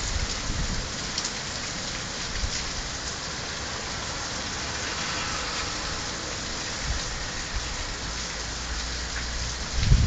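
Heavy rain pouring steadily onto wet pavement and grass, with a few low thumps around the start and near the end.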